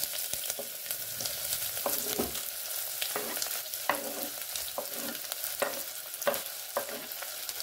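Chopped onions sizzling in hot oil in a metal pressure cooker. A spoon stirring them scrapes and knocks against the pot at irregular intervals of about half a second to a second.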